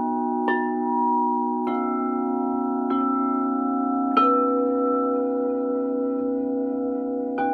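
Singing bowls ringing over a steady low hum, five strikes, the loudest about halfway. The first four come little more than a second apart and the last after a pause of about three seconds, each leaving long sustained tones that overlap.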